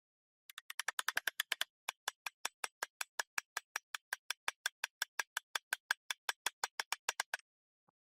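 A rapid series of sharp clicks starting about half a second in, about ten a second at first, then a steady five or six a second, stopping near the end.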